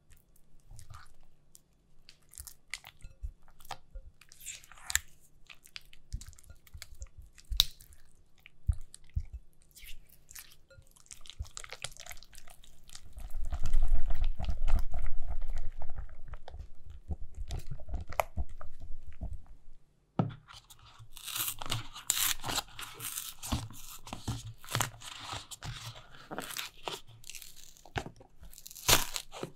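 Soft clicks and wet sounds as yogurt goes onto cream cheese in a glass bowl, then the mixture being stirred in the bowl, loudest about halfway through. Near the end, a paper carton of fresh cream is being opened, with crinkling and tearing of the paper.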